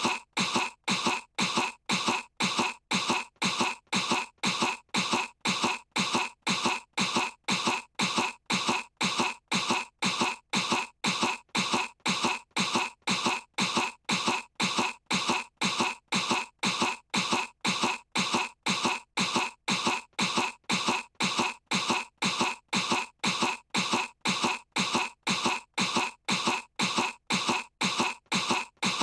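A young girl's cartoon voice forcing a fake cough to feign sickness, the same short cough repeated over and over at an even pace, a little under two a second.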